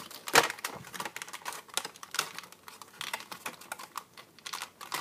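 Irregular small clicks and taps of a plastic action figure and its packaging being handled, with one sharper click about half a second in.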